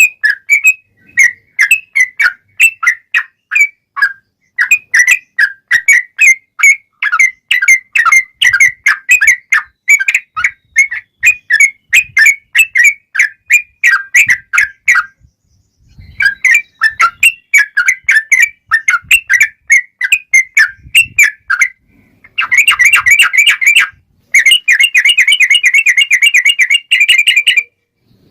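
Yellow-vented bulbul (trucukan) singing loudly in quick runs of short, whistled chirps, about three or four notes a second, with a brief pause about halfway through. Near the end it breaks into fast, unbroken rolls of notes, the long rapid-fire 'ropel panjang' song.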